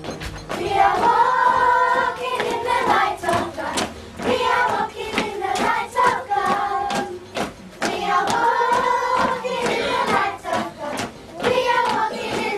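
A group of children singing a song together, with hand claps along with it.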